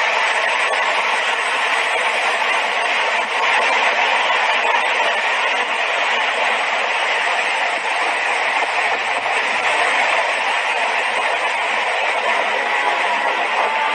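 Landslide: rock, earth and dust cascading down a steep mountainside, making a steady rushing noise.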